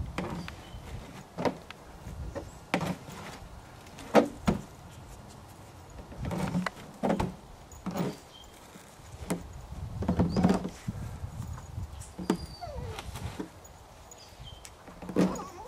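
A dog rummaging in a campsite food cooler: irregular knocks, thuds and rustling scrapes as it noses through the cooler and its contents.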